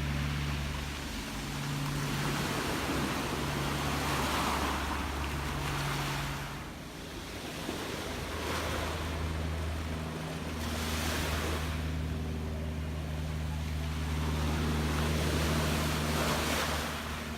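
Gentle sea waves washing in, a hissing surge that swells and fades every few seconds, over a steady low rumble.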